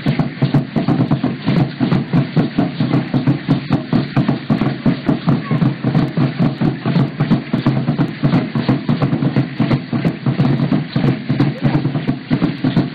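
Steady drumming, about four beats a second, with voices singing over it.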